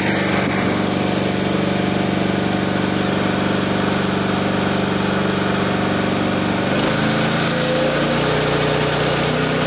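Small gasoline engine running steadily at speed, its pitch dropping slightly about seven seconds in.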